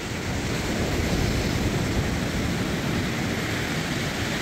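Steady wash of sea surf on a sandy beach, with wind rumbling on the microphone.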